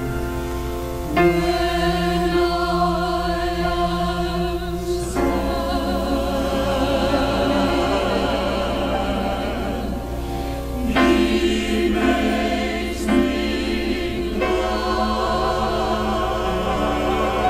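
Choir singing an old-time Christian song: long-held chords with vibrato, shifting to a new chord every few seconds.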